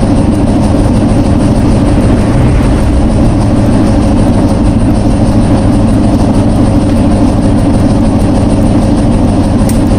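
A steady, loud mechanical rumble with a hiss over it, unchanging throughout.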